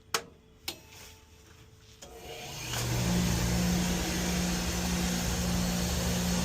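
Two sharp clicks, then a heating boiler starting up about two seconds in: a rising rush that settles into a steady running noise with a low hum, as the boiler fires after being switched onto bypass.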